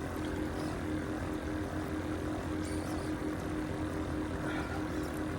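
Boat motor running steadily: a constant low drone with a steady hum, unchanging across the whole stretch.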